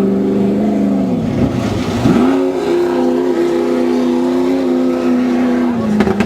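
Off-road race buggy engine running hard at a steady pitch. It dips about a second in, climbs back and holds, then drops a little near the end.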